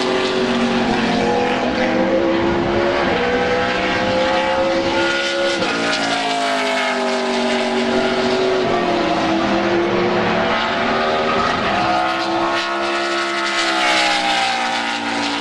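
NASCAR stock cars' V8 engines running hard on a road course as cars pass one after another. The engine pitch climbs, drops sharply and climbs again, twice over.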